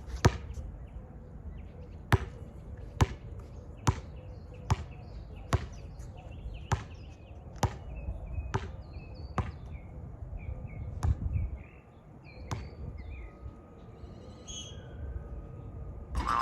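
Basketball being dribbled before a free throw: sharp, evenly spaced bounces a little under a second apart, which stop about three-quarters of the way through.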